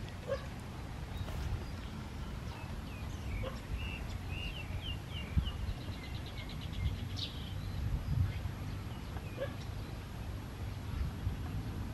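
Outdoor ambience: a steady low rumble, with a small bird chirping. Around the middle comes a run of short chirps followed by a fast, even trill.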